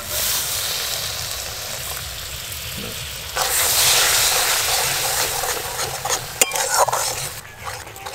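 Fried masala paste sizzling in a metal kadai as coconut milk is poured in and stirred with a spatula scraping the pan; the sizzle grows louder about three seconds in. A sharp knock of the spatula on the pan comes about six seconds in.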